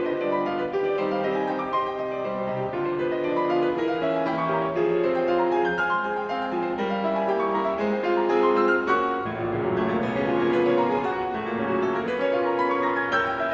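Background music: a piano piece played note by note, with no speech.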